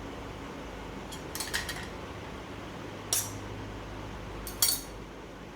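A kitchen utensil clinking against a dish three times, about a second in, at about three seconds and near the end, over a steady low hum.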